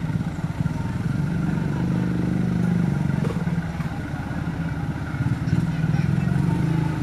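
Diesel-electric locomotive engine running as the locomotive approaches slowly, a steady low drone that swells twice, about two seconds in and again near the end.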